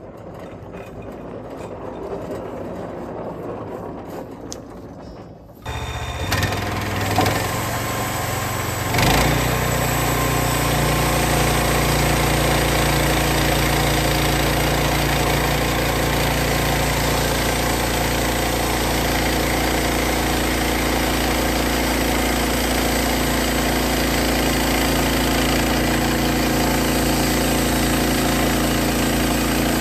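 Sawmill's gas engine cutting in suddenly about six seconds in, revving up about three seconds later, then running steadily.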